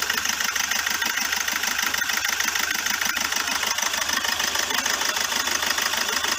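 Hyundai Verna's common-rail diesel engine idling and misfiring, with a rapid, steady clatter. The misfire is the sign of a faulty engine control module (ECM).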